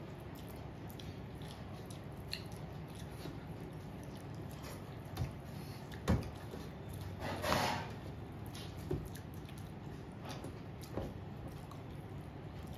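Eating sounds: rice and curry being eaten by hand, with soft wet squishes and chewing, a few small clicks, and one louder wet sound about seven and a half seconds in.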